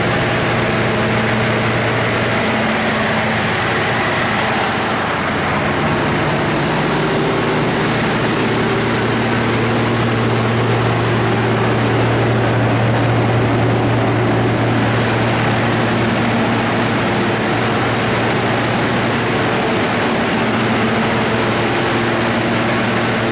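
Cummins NTA-855-G3 diesel engine of a 350 kW standby generator set running steadily, a constant drone with a steady low hum and a broad rush of fan and exhaust noise.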